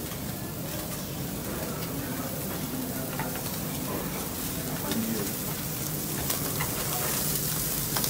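Skewered kebab meat sizzling over a charcoal grill: a steady hiss with scattered small crackles.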